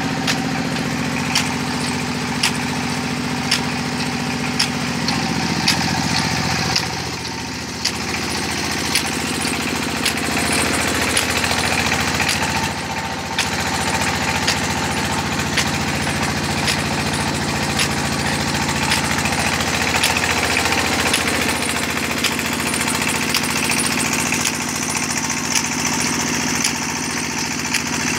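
Small stationary engine running steadily, driving a sugarcane crusher through long flat belts, with a sharp tick about once a second.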